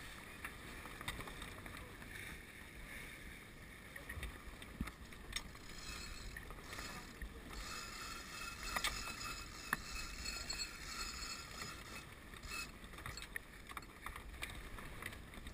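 Grand Surprise sailing yacht under way: water rushing and splashing along the hull, with a low rumble of wind on the microphone. A few short, light knocks come through.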